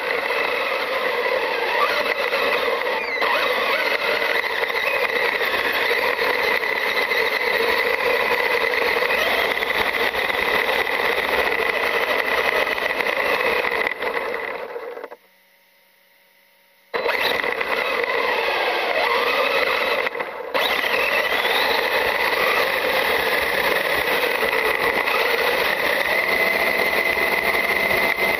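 Traxxas UDR RC truck driving over gravel and dirt, heard from a camera mounted on the truck: a steady noisy rush with a constant high-pitched tone over it. The sound drops out for about two seconds midway, then resumes.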